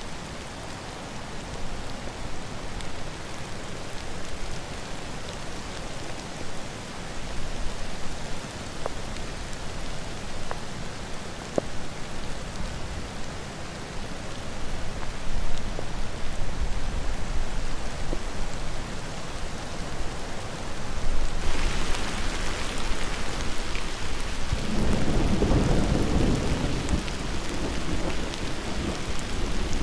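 Thunderstorm: steady rain with scattered single drops. About two-thirds of the way in the rain grows suddenly brighter and louder, and a long, low rumble of thunder follows near the end.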